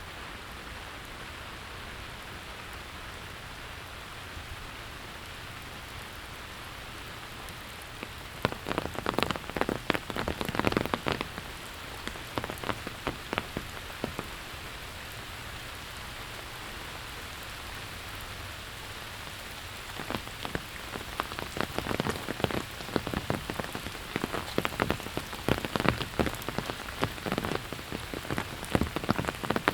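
Steady rain hiss, with two spells of loud drops tapping close to the microphone: the first about a third of the way in for several seconds, the second from about two-thirds of the way through onward.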